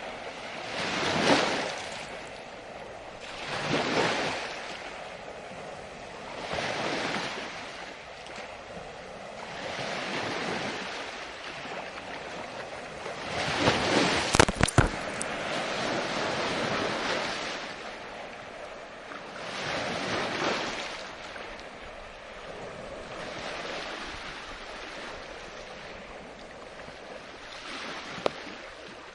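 Sea waves breaking and washing in, surging and fading every few seconds. A brief sharp knock cuts through about halfway, and a smaller click comes near the end.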